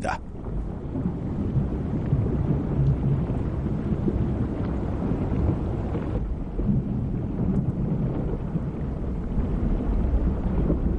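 Underwater ambience: a steady low rumble of moving water.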